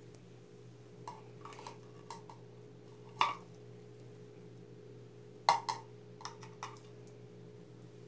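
A few sharp clicks and taps at uneven intervals, loudest about three seconds in and again about five and a half seconds in, over a steady low hum.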